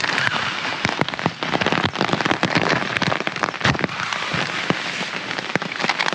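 Heavy rain falling on a tarp, a steady hiss with many sharp, separate drop strikes.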